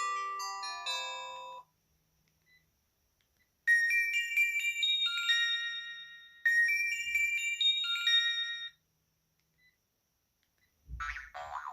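Sharp GX1 mobile phone playing ringtones through its built-in speaker: one melody ends in the first couple of seconds, and after a pause a new tune plays as two similar phrases. Near the end a short, different sound begins.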